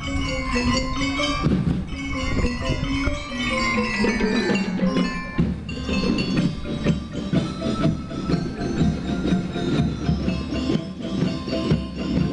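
Drum and lyre band playing: bell lyres ring out a melody over a steady, driving drum beat.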